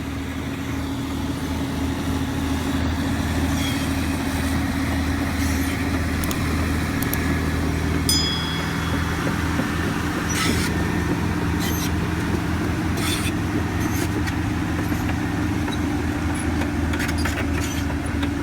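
Heavy diesel machinery running steadily under load as a Big Bud tractor tows a Caterpillar D10 bulldozer: a low, even engine drone with a steady hum. Scattered sharp metallic clicks and clanks come through now and then.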